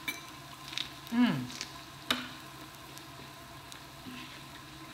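Meat and jalapeño slices sizzling on the hot pot's grill plate, a steady frying hiss. About a second in, a short hum falling in pitch comes from one of the eaters, and a sharp click follows a second later.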